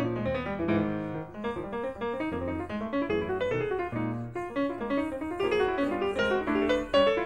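Background piano music, many quick notes played over low bass notes.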